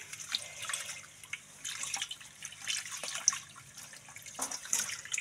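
Kitchen tap running into a bowl of rice in a sink while a hand swishes the rice to rinse off the starch: uneven splashing, with one sharp knock about three seconds in.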